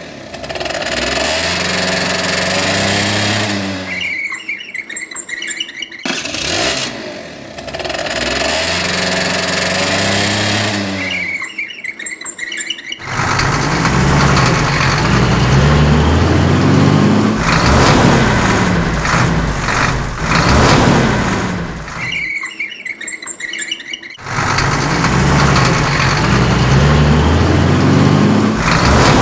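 Motor vehicle engine revving in short repeated clips. The first sound plays twice, its pitch falling after each rev. From about 13 seconds a heavier engine, matched to a dump truck, revs up and down, stops for about two seconds, then plays again.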